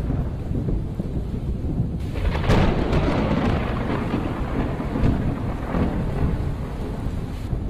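Thunderstorm: a steady low rumble with rain, and a clap of thunder about two and a half seconds in that rolls on and slowly fades over the next few seconds.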